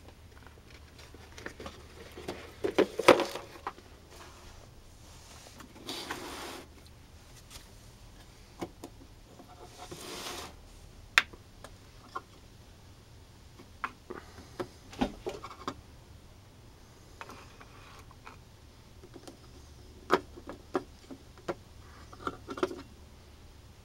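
Hard resin orgonite pucks being handled: scattered clicks and knocks as they are popped out of a metal muffin tin and set down on wooden boards, with a few short scrapes.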